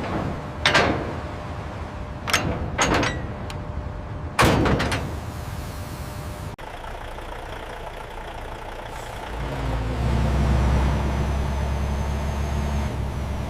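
Four sharp metal clanks in the first five seconds, like truck cargo doors banging shut, then a vehicle engine running low and steady, growing louder about ten seconds in.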